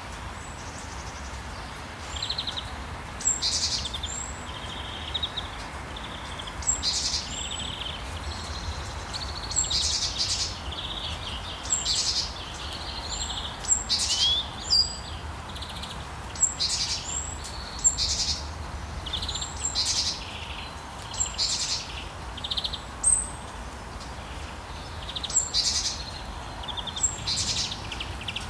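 Songbirds singing, a string of short chirps and whistled phrases repeating every second or two over a steady background hiss.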